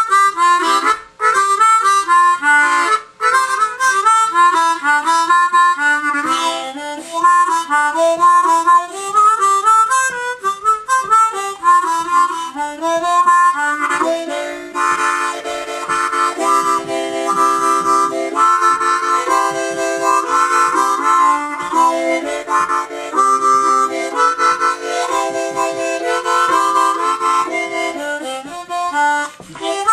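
Hohner student harmonica in C, with a plastic mouthpiece that guides single holes, being played: quick single-note melody runs, then from about halfway, rhythmic chords of several notes at once.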